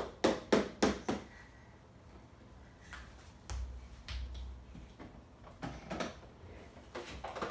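Sharp clicks and knocks, four in quick succession in the first second, then a few more around the middle and again near the end, with a low dull thudding about halfway through.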